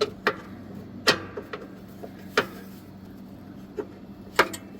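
Several sharp, irregular metal clanks and taps as the steel mower deck is slid forward and its linkage lined back up, over a faint steady low hum.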